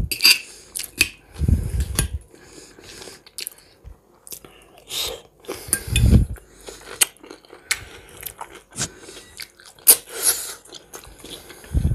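Close-miked eating sounds: crunchy chewing and biting of fresh cucumber and tomato salad and hot-smoked red perch, with many short sharp clicks and a few dull low thumps.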